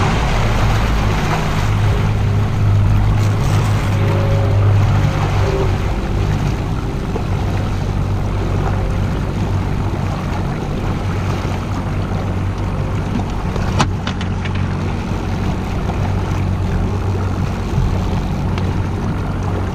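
Boat engine running steadily with a constant low hum, with wind and water noise over it; a single sharp click about fourteen seconds in.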